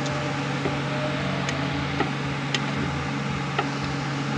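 A handful of light, sharp metallic clicks as clutch plates and drum parts are shifted by hand inside a 10R80 automatic transmission case, over a steady low background hum.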